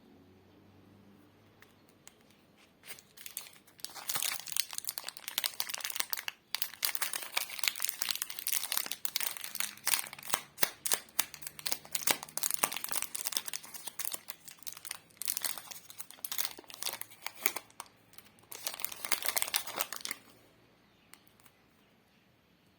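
Lollipop's plastic wrapper crinkling and crackling close to the microphone, a dense run of sharp crackles that starts about three seconds in and stops near the end.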